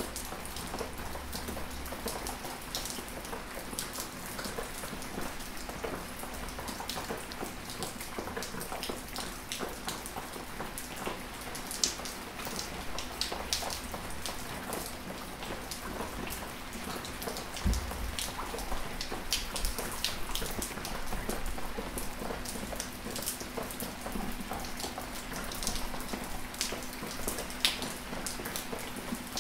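Gentle rain falling: a steady hiss of rain with many separate drops ticking close by.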